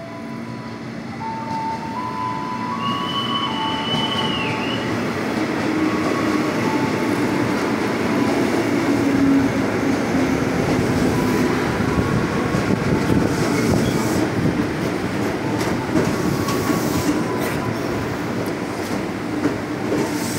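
KRL Commuter Line electric multiple-unit train pulling into the platform and rolling past at close range, its wheels and running gear rumbling louder as it comes alongside. A brief high wheel squeal sounds about three to four seconds in.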